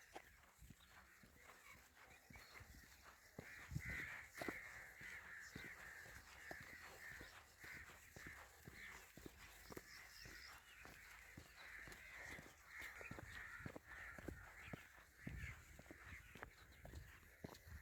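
Birds calling over and over, a few calls a second, starting a few seconds in, with the faint crunch of footsteps on a path.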